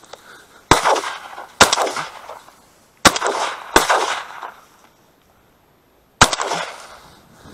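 Five shotgun shots: two about a second apart, two more about a second and a half later, and a last one some two and a half seconds after that, each with a short fading tail.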